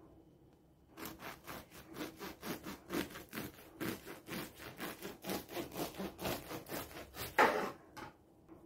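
Bread knife sawing through a crusty carrot and sultana loaf, quick back-and-forth strokes about three a second starting about a second in, with one louder scrape near the end.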